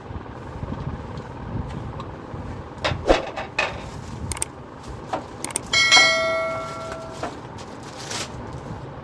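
Refrigerator door panels being handled: a few sharp knocks, then about six seconds in one metallic clang that rings and fades over about a second, over a steady low rumble.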